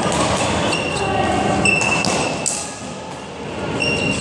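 Badminton rally: sharp racket strikes on the shuttlecock and trainers squeaking on the sports-hall floor, echoing in the large hall.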